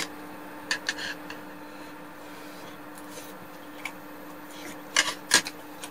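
Short crisp crunches from a crispy pan-fried kimchi pancake being cut or bitten: a small cluster about a second in and a louder pair about five seconds in, over a steady faint hum.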